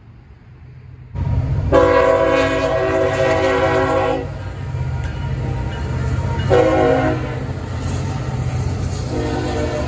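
Freight locomotive horn sounding over the rumble of a passing train. From about a second in: one long blast of about two and a half seconds, a short blast, then another blast starting near the end.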